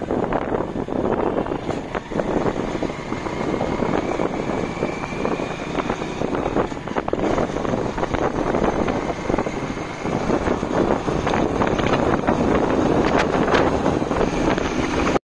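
Motorcycle running at cruising speed on an open road, heard from the rider's position, with heavy wind buffeting the microphone. A faint whine rises slightly in pitch a few seconds in.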